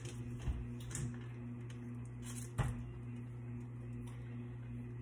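Butter being pushed off a wrapper into a stainless steel stand-mixer bowl: a couple of light knocks against the bowl, the sharper one about two and a half seconds in, over a low steady hum.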